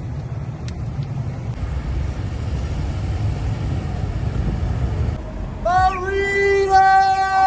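A low rumble of vehicles, then about five and a half seconds in, vehicle horns start honking: several long, steady notes at different pitches sounding together.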